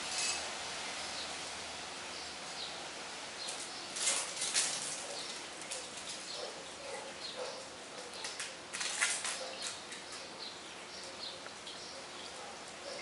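Steady outdoor background hiss with scattered faint bird chirps. A few brief scuffling, rustling noises come about four seconds in and again about nine seconds in.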